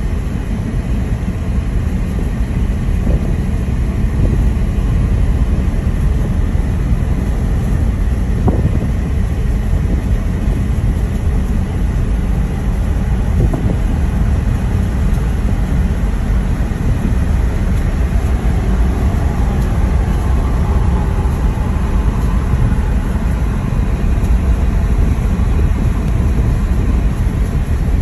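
A car being driven: steady low road and engine noise.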